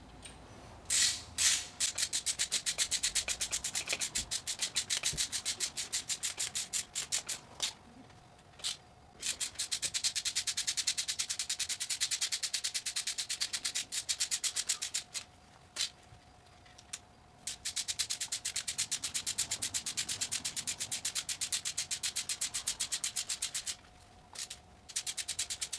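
Hand socket ratchet clicking rapidly in several runs of a few seconds each, with short pauses between them, as bolts are run down on the supercharger and intake of a supercharged GM 3800 V6.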